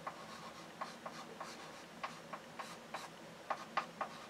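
Chalk writing on a blackboard: a run of short, irregular taps and scratches as a formula is written out.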